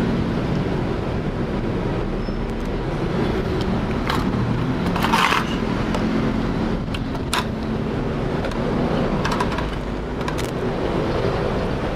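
Steady low background rumble, like road traffic, with a few light clicks and a brief scrape about five seconds in as the motherboard and multimeter probes are handled.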